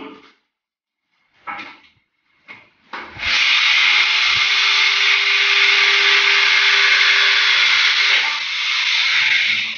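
Electric power drill running steadily for about six seconds, starting about three seconds in: a loud hissing whirr over a steady motor hum, while a wooden stud partition frame is being put up. It eases off slightly near the end.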